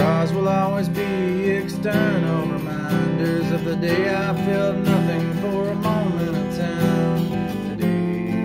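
Acoustic guitar strummed with a man singing over it.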